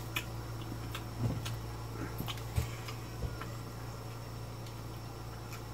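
Close-miked chewing of bacon-wrapped corn on the cob: a few soft wet clicks and smacks, mostly in the first three seconds, over a steady low hum.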